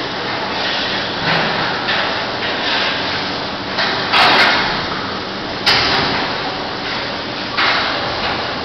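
Powered hide puller stripping the hide from a beef carcass: a steady rushing, tearing noise, with sudden louder hisses about four, five and a half, and seven and a half seconds in.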